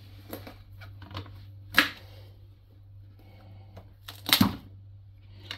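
A knife cutting through a butternut-type squash on a cutting board and the halves being handled: scattered knocks and cracks, with a sharp one about two seconds in and a loud cluster just after four seconds.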